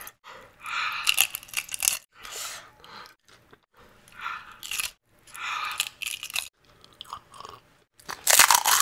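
Close-up crunching and chewing of pani puri: the crisp fried puri shells crack as they are bitten, in short bursts every second or two, with the loudest crunching near the end.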